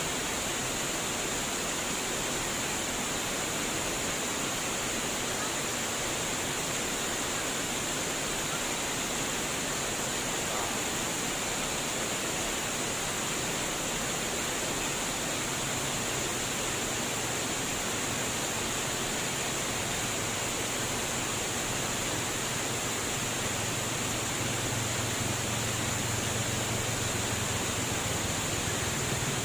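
Steady rush of flowing water, an even splashing noise with no breaks. A low rumble comes in about halfway through and grows louder toward the end.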